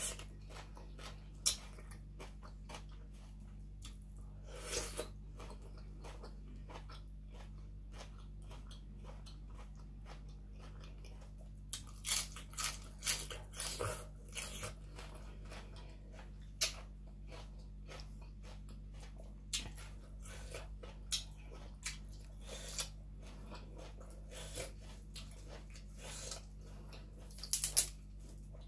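A person chewing and crunching mouthfuls of papaya salad and raw vegetables: irregular crisp bites and wet mouth sounds, with a run of louder crunches about twelve seconds in and a few more near the end.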